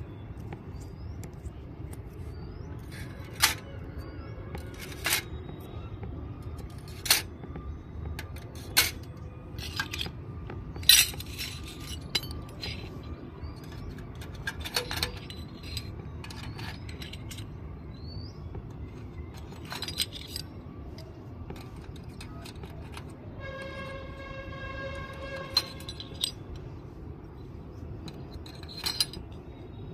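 Miniature stainless steel toy cups and utensils clinking against each other and against a steel dish rack as they are hung on its hooks: a dozen or so sharp, separate metallic clinks spread out, over a steady low background noise. A steady pitched tone sounds for about two seconds roughly three-quarters of the way in.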